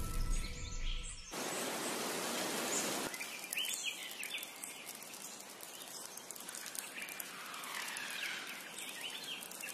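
Tropical rainforest ambience: a steady hiss that is louder for the first couple of seconds and then settles lower, with scattered short bird chirps through it.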